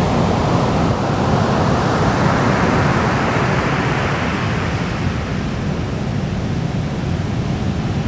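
Ocean surf breaking and washing onto the beach: a continuous rush of waves that swells a second or so in and eases after about four seconds.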